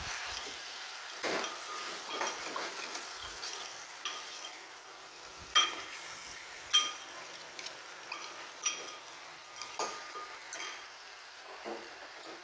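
A metal ladle and spoon stirring frog pieces in a clay pot, with frequent ringing metal clinks and scrapes, the two loudest about halfway through, over a steady sizzle of stir-frying.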